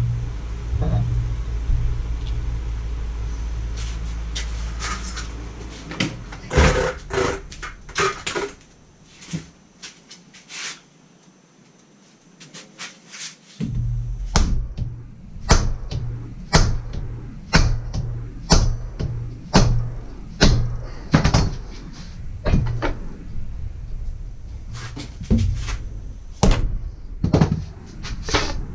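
Repeated metal clinks, taps and knocks from a hand tool and the parts of an excavator's hydraulic ram as the rod gland is worked on. Underneath runs a steady low hum that drops out for about four seconds midway.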